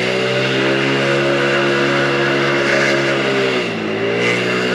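Mondial Turismo 80cc motorcycle engine running at a steady cruising speed over a rush of wind. About three and a half seconds in, the revs dip briefly and then pick back up.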